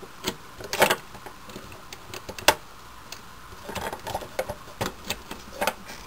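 Hard plastic clicking, tapping and rattling as an action figure is handled and pushed into place on a plastic toy motorcycle. Two sharper clacks come about one second and two and a half seconds in, then a run of smaller ticks.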